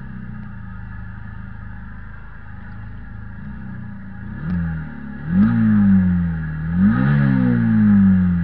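Kymco Quannon 125's single-cylinder engine idling, then blipped briefly about four and a half seconds in and revved up twice in quick succession, its pitch sinking slowly back after the second rev.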